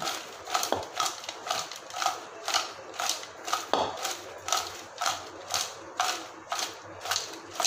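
Crisp fried popcorn chicken pieces tossed in a plastic bowl to coat them with chaat masala, landing back in the bowl with a crunchy rattle about three times a second.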